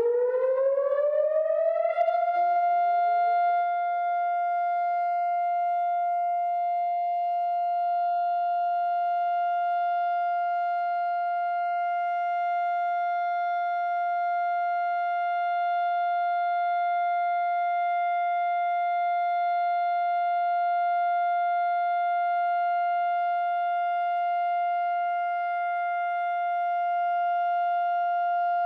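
Israeli Memorial Day remembrance siren, the steady nationwide siren during which everyone stands in silence for the fallen. It is still rising in pitch for the first couple of seconds, then holds one long, steady tone.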